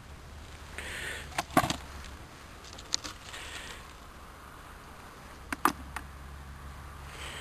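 A handful of sharp knocks and clicks, the loudest about a second and a half in, with soft scraping or rustling between them.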